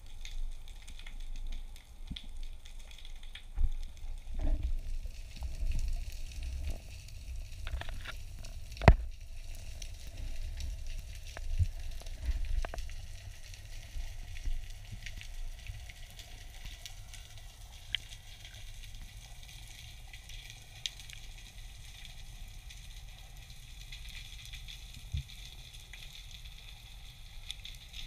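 Underwater ambience heard through a diver's camera housing: a steady fine crackle of tiny clicks, typical of snapping shrimp on a rocky reef. Soft low bumps and thuds come through the first half as the spearfisher moves, with one sharp knock about nine seconds in.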